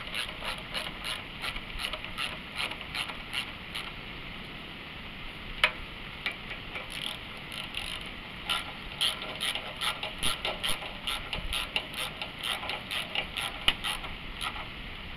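Ratchet wrench clicking in quick repeated strokes as the carburetor mounting bolts are tightened down, with a brief pause and one sharper click about a third of the way in.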